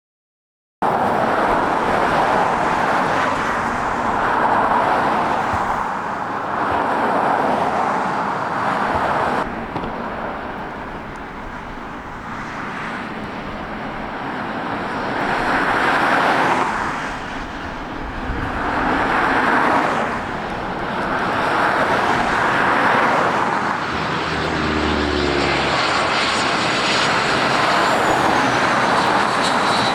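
Jet airliner engine noise mixed with passing road traffic. The noise starts abruptly about a second in and swells and eases every few seconds, and a vehicle engine hums briefly near the end.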